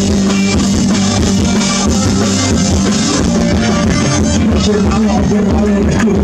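Live rock band playing loudly: drum kit and electric guitars.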